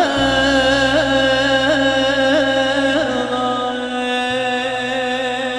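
Turkish folk song performed live: a long, ornamented melody note held over a steady low accompaniment.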